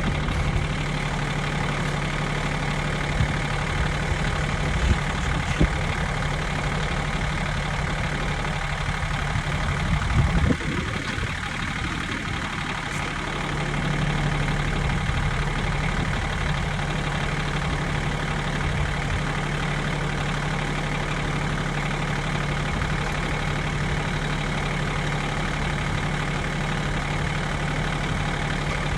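Kioti CS2610 subcompact tractor's diesel engine running at a steady idle, with a brief louder noise about ten seconds in before the engine note settles back.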